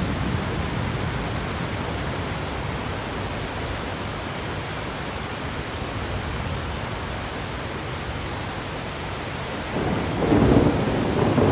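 Heavy rain falling steadily, with a louder low rumble swelling up about ten seconds in.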